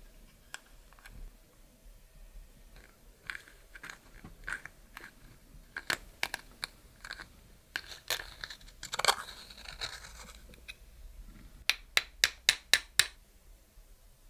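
Close-up handling sounds: scattered sharp clicks and small crackles, a scraping, rustling stretch a little past the middle, then a quick run of about seven sharp clicks near the end.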